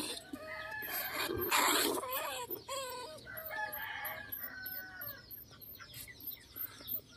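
Chickens clucking and a rooster crowing, loudest in the first two seconds and fading after.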